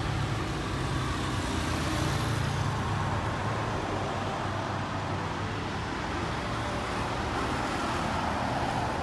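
Street traffic passing: car and pickup engines and tyre noise, steady, swelling slightly as vehicles go by.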